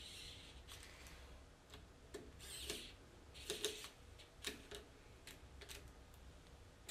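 Faint clicks and short scrapes of a small precision screwdriver driving a self-tapping screw through the G sensor into its 3D-printed plastic bracket.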